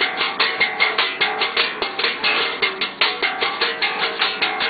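Bass guitar played with a rapid slap technique: a fast, even run of percussive slapped notes, about four or five hits a second.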